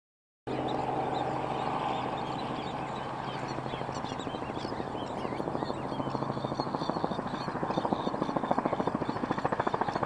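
Helicopter flying in: a steady engine hum gives way to a rapid, even rotor beat that grows louder toward the end.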